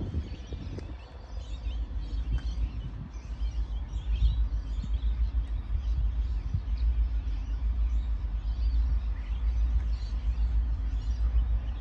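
Birds chirping over a low, steady rumble that grows a little louder about four seconds in.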